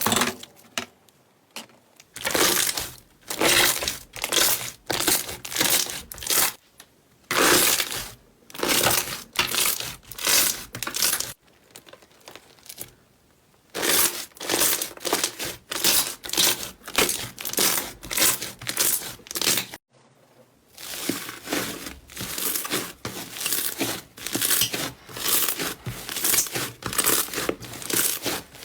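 Slime being squeezed and pressed by hand, giving a run of crackling, crinkling squelches about one or two a second, with a few brief pauses.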